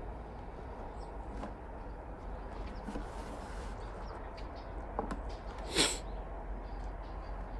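Quiet handling noises at an open beehive: faint clicks and taps over a steady low background noise, with one short, louder scraping rustle about six seconds in.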